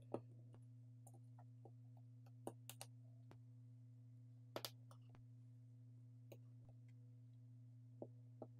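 Scattered small clicks and taps of phone parts and tools as a Samsung Galaxy Z Flip6 is put back together, over a faint steady low hum. There are about a dozen light, irregular clicks, a close pair about halfway through being the sharpest.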